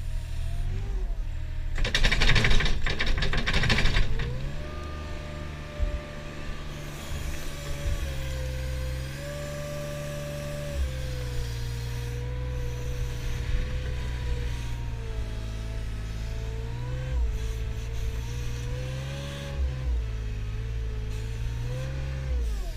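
Mustang compact loader's diesel engine running under load, its pitch rising and falling as the loader pushes into the silage pile and backs off. About two seconds in there is a loud rough rushing noise lasting about two seconds.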